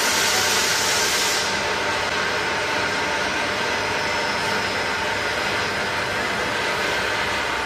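Vacuum frying machine running: a steady mechanical din, with a brief rise of hiss in the first second and a half.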